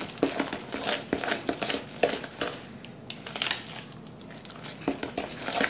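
Spoon stirring thick cornbread batter mixed with chili in a mixing bowl: a run of irregular scrapes and light knocks against the bowl.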